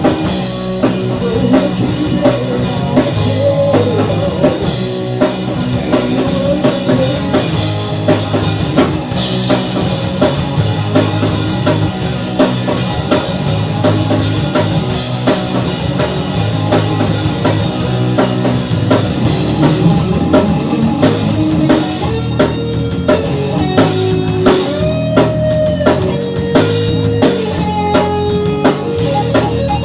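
Rock music with a drum kit keeping a steady beat and guitars playing; about twenty seconds in the cymbals drop back and single held guitar notes come through.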